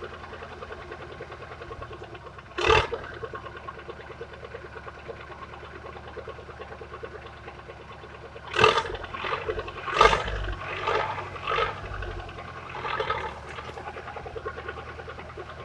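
Heavy off-road truck's engine running with a steady throb. It is revved in a short, loud burst about three seconds in and in several more bursts between about nine and thirteen seconds, as the truck pushes into dense brush.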